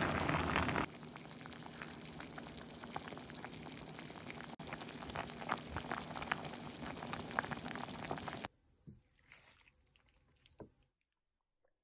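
Pot of chicken and bok choy broth bubbling at a boil: a dense, crackling bubbling that stops suddenly about eight and a half seconds in. After that only a few faint knocks are heard.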